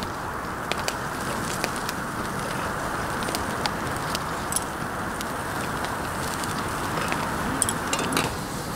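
Meat grilling over a fire: a steady sizzling hiss with scattered sharp ticks and pops.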